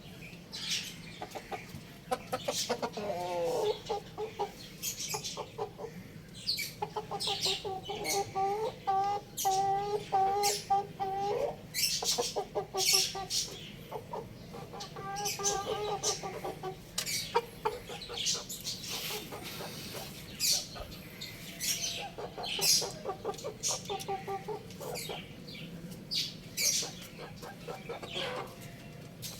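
Young chickens clucking in several drawn-out runs of rapid pulsed calls, with short, sharp high chirps scattered throughout.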